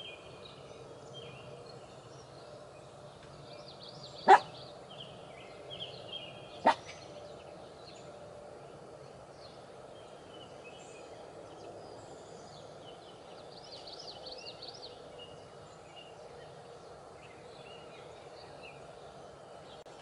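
Faint outdoor ambience with small birds chirping in the background. Two sharp clicks come through, about four and six and a half seconds in.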